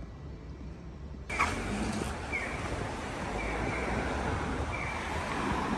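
City street ambience: a faint hum, then about a second in louder traffic noise from cars on the road starts suddenly, with short high falling chirps repeating every second or so.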